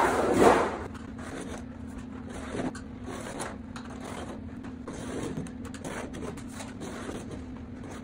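A sheet of galvanized steel is moved and rattles briefly at the start, then a screwdriver tip is drawn along a metal straightedge across the sheet, scribing lines with a series of short scrapes.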